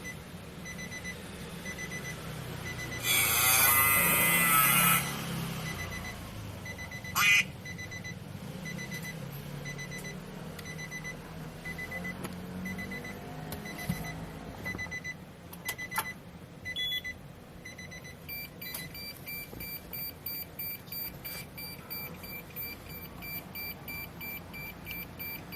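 Electronic beeping: a short high beep repeating about twice a second, broken about three seconds in by a loud two-second electronic sound effect. From about eighteen seconds in, a faster beeping in several tones takes over.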